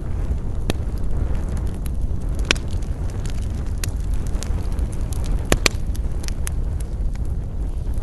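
Campfire burning: a steady low rumble and hiss with scattered crackles and pops of burning wood, the sharpest pop about two and a half seconds in and a quick double pop about halfway through.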